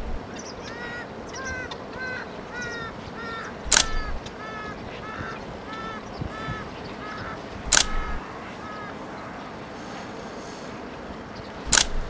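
A waterbird calling in a quick run of short nasal, duck-like notes, about two or three a second, stopping about nine seconds in. Loud sharp camera-shutter clicks come every four seconds: at the start, about four and eight seconds in, and at the end.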